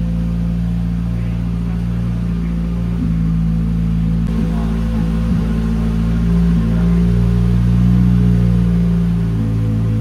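Škoda Rally2 car's 1.6-litre turbocharged four-cylinder engine idling steadily, swelling slightly in loudness about two-thirds through.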